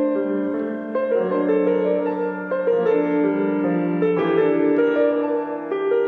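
Flugelhorn playing a slow melody with long held notes over a piano accompaniment.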